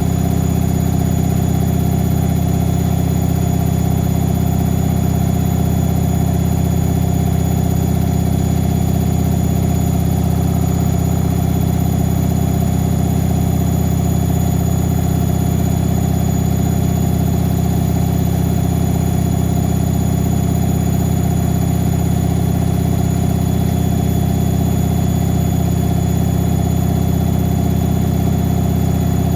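Whirlpool AWM 864 Aquaprogramm washing machine running with a loud, steady motor hum that does not change.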